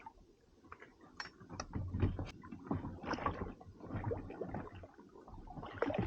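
Irregular knocks, clicks and rustling from fishing gear being handled aboard a small inflatable boat, over a low uneven rumble.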